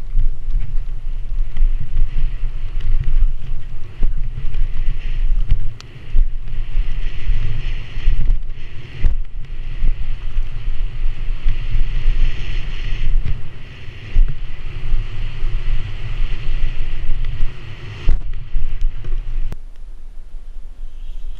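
Mountain bike riding fast down a dirt and leaf-litter trail, heard through a helmet-mounted camera: heavy wind buffeting on the microphone over the rumble and hiss of the tyres. The rumble drops away near the end.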